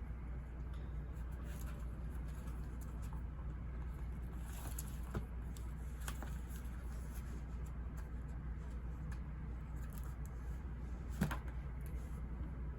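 Steady low ambient noise. A few faint taps and clicks sit over it, the loudest a soft knock about eleven seconds in.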